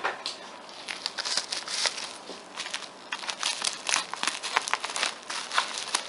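Plastic packaging and bubble wrap crinkling as they are handled and cut open with scissors: a dense run of irregular crackles.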